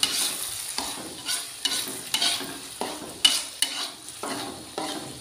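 Metal spatula stirring and scraping a thick chili paste (sambal terasi) frying in a wok, about two scraping strokes a second over a steady sizzle.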